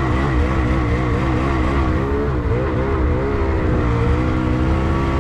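2022 Lynx Boondocker snowmobile engine running under load while towing a second sled, its pitch wavering up and down with the throttle and holding steadier near the end.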